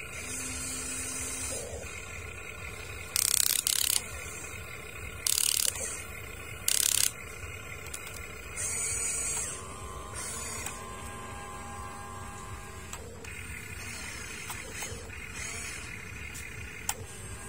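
Huina RC excavator's small electric gear motors whining in steady tones that start and stop as the boom, arm and bucket move. Three short, much louder grinding noises come between about 3 and 7 seconds in.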